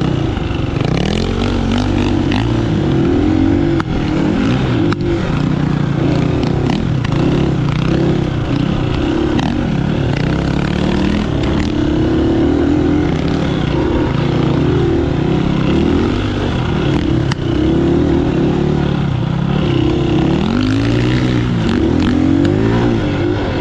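A vehicle's engine under way, its pitch climbing and dropping again and again as it speeds up and slows down, over a steady rushing noise.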